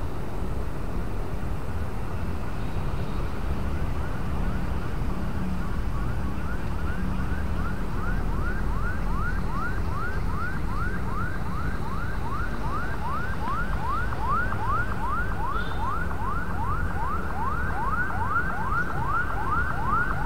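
Diesel engine of an MTT track tamping machine running with a steady low hum. From about six seconds in, a rapidly repeating rising warning tone joins it, about two and a half sweeps a second, growing stronger toward the end.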